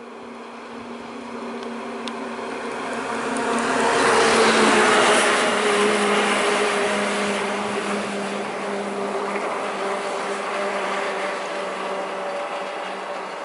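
Ashok Leyland diesel tipper truck passing close by, its engine noise swelling to its loudest about four to five seconds in, then running steadily as it slows beside a three-wheeler.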